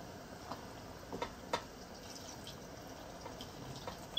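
Meat stock poured from a plastic tub into a pot of thick egusi soup, faint and liquid, with a few soft pops scattered through and one sharp tick at the very end.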